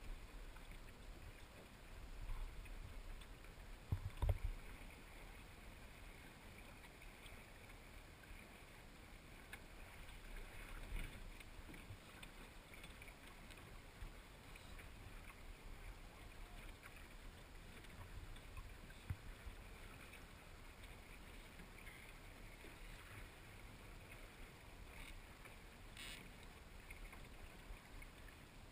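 Faint water lapping and trickling along the hull of a small sailing dinghy drifting in light air. A sharp knock sounds just after four seconds in, with a low rumble around it, and there is a brief click near the end.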